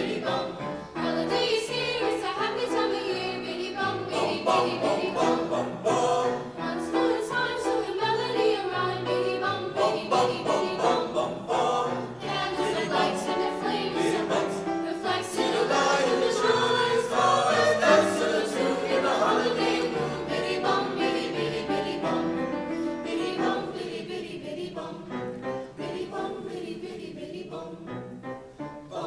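High school choir singing holiday music, growing quieter over the last few seconds.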